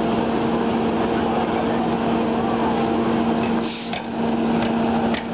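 Small engine of a Hurst hydraulic rescue-tool power unit running steadily, a constant drone, briefly quieter a little before the end.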